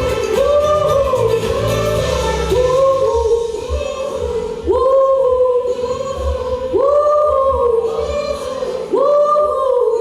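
Live band music with a group of singers holding long 'ooh' notes, each about two seconds and swooping up into its pitch, the closing refrain of a pop song. The accompaniment thins out a few seconds in, leaving mostly the voices over a low bass.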